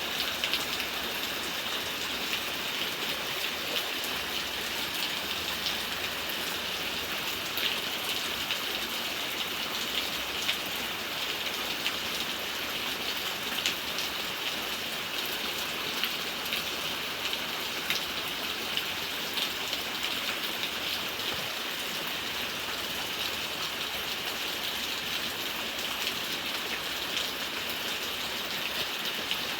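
Steady rain falling, a continuous hiss with many individual drops ticking sharply on a hard surface.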